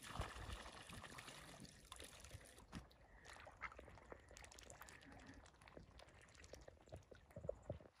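Faint splash of water poured from a bucket into a pond, then quiet small splashes and clicks as ducks dabble with their bills in the shallows.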